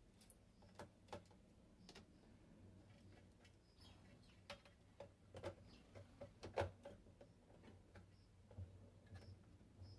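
Faint, scattered clicks and light knocks from small parts and tools being handled while a homemade speaker box is assembled, the sharpest click about two-thirds of the way through, over a low steady hum.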